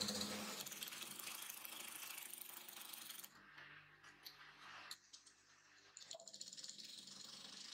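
Rapid light mechanical clicking and rattling that drops to a few separate clicks about three seconds in, then picks up again near the end.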